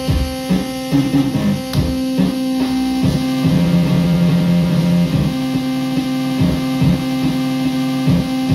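Circuit-bent B. Toys Meowsic cat toy keyboard making glitchy electronic noise. A steady buzzing drone sits under a rhythmic pulse of about two to three beats a second, and a lower note is held on the keys near the middle.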